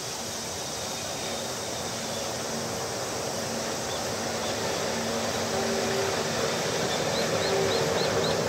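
EF63 electric locomotive rolling slowly along the track, with a steady electric hum and the rumble of its wheels on the rails, growing steadily louder as it approaches.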